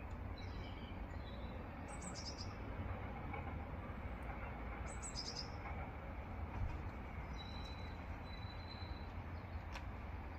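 Small birds calling: two short bursts of high, falling chirps about two seconds in and again about five seconds in, then a thin, steady whistle held for a couple of seconds near the end, over a steady low rumble.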